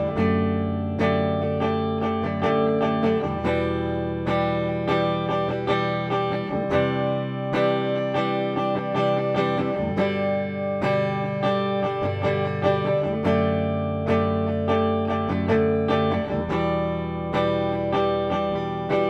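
Lavish CMRL-W electric guitar with Tesla pickups played on the mixed pickup setting, both pickups together: a continuous passage of ringing chords and picked notes.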